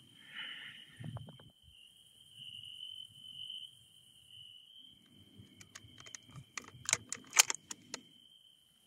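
Clicks and knocks from hands handling a scoped hunting rifle, clustered about six to eight seconds in. Under them, crickets trill steadily and high throughout.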